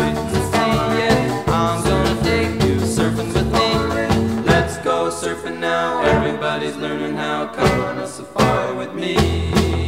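Upbeat background music with a steady beat; the bass drops away about halfway through and comes back near the end.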